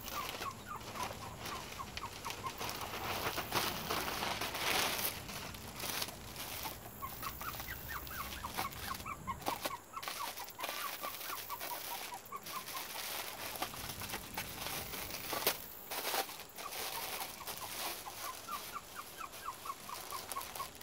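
Plastic packaging crinkling and rustling as it is handled, in bursts. In the background a bird calls in quick runs of short repeated notes.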